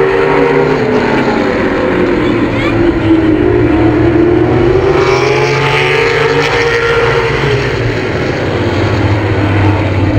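A pack of short-track stock car engines racing around an oval, their pitch rising and falling as they lift through the turn and accelerate out. The sound is loudest around the middle as the cars pass close by.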